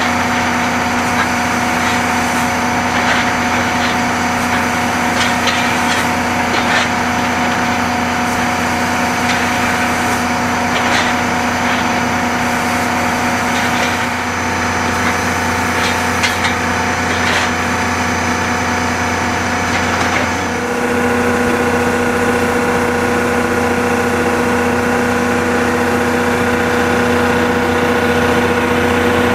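C61 20 steam locomotive standing at the platform, its steam auxiliaries running with a steady whine and hiss and light clicks. The steady tone shifts about two-thirds of the way through.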